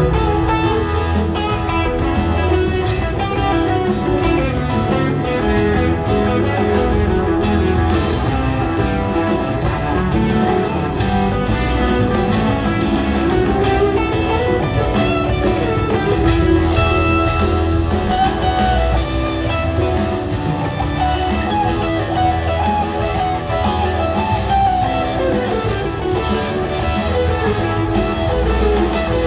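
Live rock band playing an instrumental jam: an electric guitar plays a winding melodic line over drums and bass, loud and continuous with no singing.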